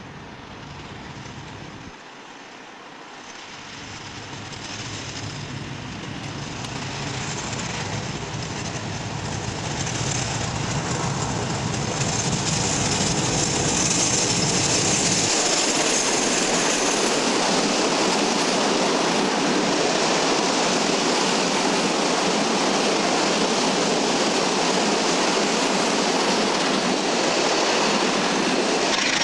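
Class 56 diesel locomotive approaching and passing at the head of a freight train, its engine sound growing louder. About fifteen seconds in the deep engine sound drops away, leaving a long rake of hopper wagons rolling past with a steady rush of wheel-on-rail noise.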